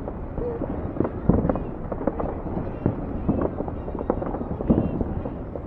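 Fireworks going off in a dense, irregular barrage of bangs and crackling pops, one overlapping the next over a continuous rumble.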